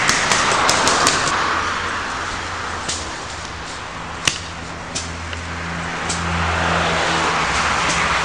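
Paintball markers firing: a quick string of sharp pops in the first second, then a few single pops. Under them is a steady rushing noise of wind and movement on the microphone as the camera is carried through brush.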